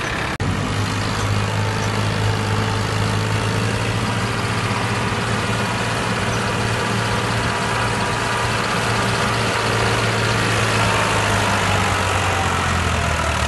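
Farmtrac tractor's diesel engine running steadily as the tractor drives along, a low even drone. There is a brief dropout in the sound about half a second in.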